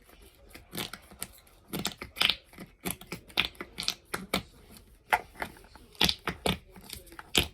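Jelly slime packed with bingsu beads being squeezed and kneaded by hand, giving irregular sharp clicks and wet pops, several a second.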